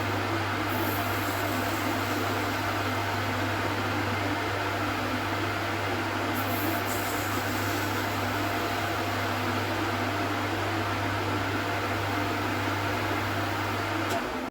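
Manual metal lathe running steadily, its motor giving a constant low hum under an even mechanical whir. The sound cuts off suddenly near the end.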